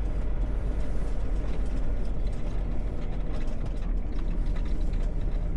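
Semi-truck's diesel engine idling with a steady low rumble, with scattered light clicks and rattles on top.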